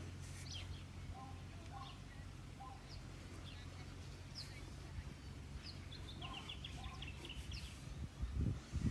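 Birds chirping and calling: short high chirps, a quick trill of repeated notes about two-thirds of the way through, and some lower short notes, over a steady low rumble. A few low thumps come near the end.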